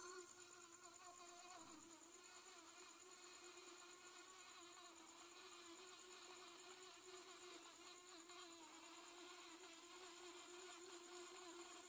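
Faint, steady whine of the small electric drive motors of a homemade remote-controlled helmet robot as it drives slowly along.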